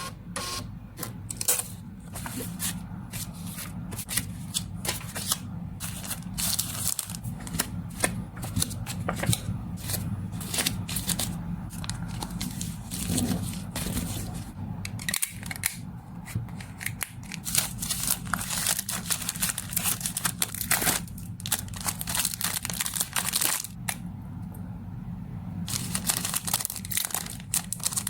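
Parcel packing by hand: plastic packaging crinkling and rustling, with irregular tearing sounds and sharp clicks and taps, over a steady low hum.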